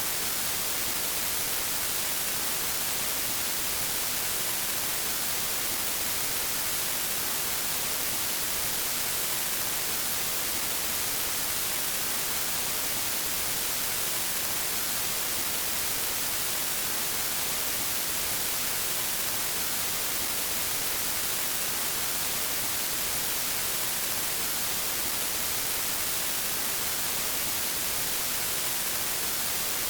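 Steady static hiss of white noise, strongest in the high treble, with no change in level or pitch.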